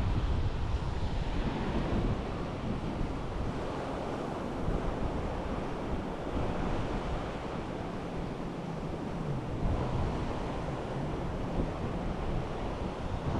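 Sea surf washing onto a beach, with wind buffeting the microphone. The noise swells and eases slowly.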